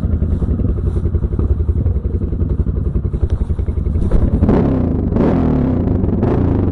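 Honda XR650R's 649 cc single-cylinder four-stroke engine running at low revs with a steady thumping pulse, then pulling harder as the throttle opens about four seconds in. Gusts of wind noise over the onboard microphone come in with the acceleration.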